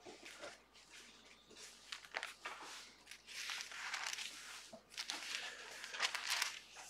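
Bible pages being leafed through: a run of soft paper swishes and crinkles, starting a couple of seconds in.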